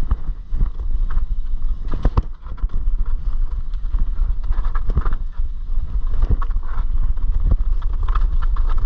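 Mountain bike (a full-suspension Slash) ridden over a dirt and rock trail: tyres rolling and crunching on the ground, with frequent sharp knocks and rattles from the bike over bumps, under a steady low rumble of wind on the microphone.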